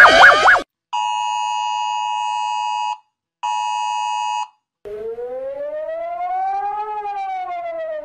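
Emergency alert sounds played back one after another. First the end of a fast-warbling phone alarm tone, cut off just under a second in. Then the phone wireless emergency alert attention signal: a long steady two-tone beep followed by a shorter one. Then a warning siren whose single tone rises slowly and falls again.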